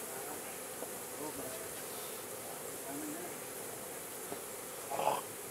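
Honey bees buzzing around an opened, disturbed hive: a steady hum of many bees with single bees' tones wavering in pitch, and one brief louder buzz about five seconds in.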